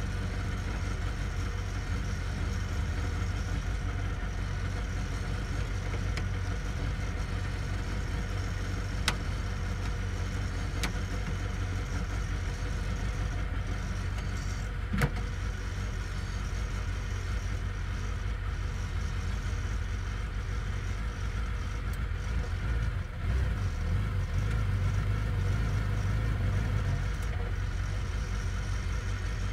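Open-cockpit race car's engine idling steadily, with two sharp clicks along the way. Near the end it runs a little louder as the car is put into first gear and pulls away slowly.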